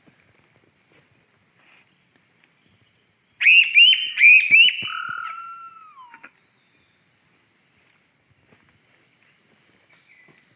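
A loud run of quick whistled bird-like notes, several rapid sweeping chirps and then a longer note that slides downward, lasting about three seconds, heard during bird trapping.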